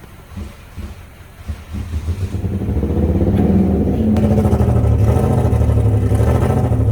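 A vehicle's engine running close by, swelling about two seconds in and then holding steady and loud with a low, pulsing note.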